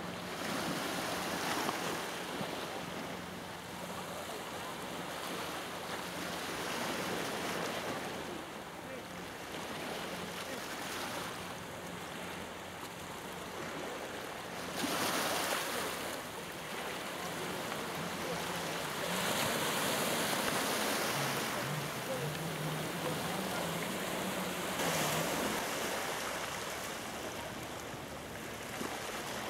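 Small sea waves breaking and washing up a pebble beach, swelling every few seconds, with a faint low steady hum underneath.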